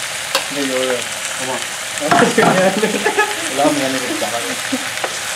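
Venison and squirrel meat frying in a nonstick wok under a thick curry paste, with a steady hiss of sizzling. A voice is heard in the background, loudest in the middle.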